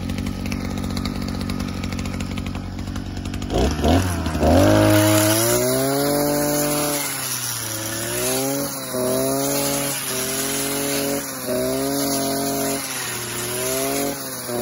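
Partner two-stroke brush cutter engine idling low, then revved up about four seconds in and held at high speed. Its pitch dips and recovers every second or two as the cutting head bites into dense grass and weeds.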